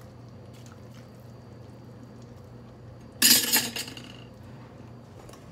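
Kitchenware clattering: one sudden loud clash of a utensil or dish against a pot or bowl about three seconds in, ringing briefly, over a faint steady hum.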